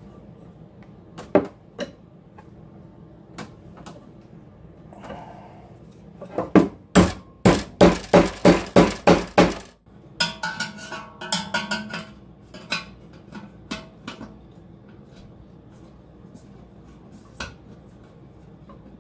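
Hammer striking metal: a quick run of about ten ringing blows, about three a second. Scattered clanks and clicks of metal parts being handled come before and after.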